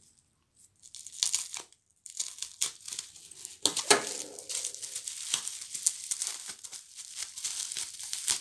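Bubble wrap crinkling and crackling as it is pulled off a small cardboard box by hand. The crackling is irregular and starts about two seconds in, after a short near-quiet.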